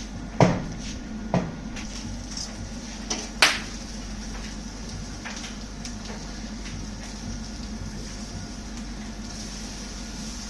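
Four sharp knocks and clacks from handling a lidded barbecue grill and its cooking tools, the loudest about half a second in and the rest within the next three seconds, over a steady hum.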